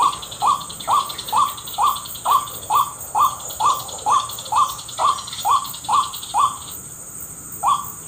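White-breasted waterhen calls: a short, rising note repeated about twice a second in a steady rhythm, breaking off about six and a half seconds in and starting again near the end. A steady high-pitched insect drone runs behind.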